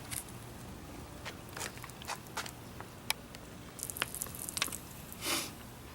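Aluminium Coca-Cola can being handled after springing a pinhole leak: scattered light clicks and taps, with a couple of short scraping rustles near the middle and end.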